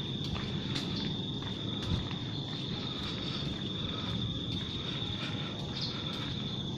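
A steady high-pitched insect trill, with footsteps ticking about twice a second and a low steady rumble underneath.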